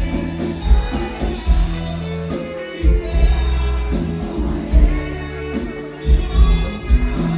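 Live norteño band music with a singer, over a strong pulsing bass.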